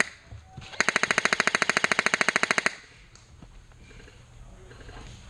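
Airsoft rifle firing a full-auto burst of about two seconds, around fifteen shots a second, starting under a second in; the tail of an earlier burst is heard right at the start.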